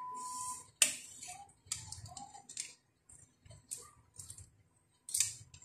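A metal fork clicking and scraping against the inside of a stainless steel pot as boiled pork leg is prodded and turned in it: a string of separate sharp clicks and scrapes.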